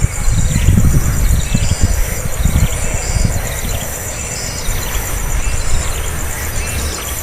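Outdoor ambience of a steady, pulsing insect buzz with short high bird chirps repeating every half second or so, over a low rumble of wind on the microphone.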